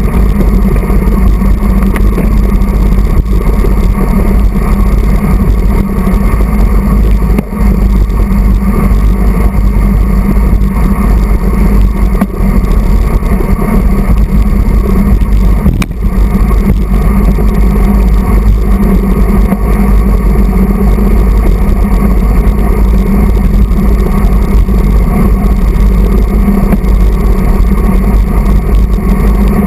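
Wind buffeting the microphone of a camera mounted on a road bike's handlebars while riding at speed: a loud, steady rumble.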